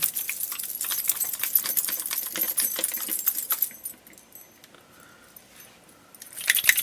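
A small bottle of craft paint shaken hard, the mixing ball inside rattling rapidly to stir up the settled paint. The rattling stops about four seconds in and starts again briefly near the end.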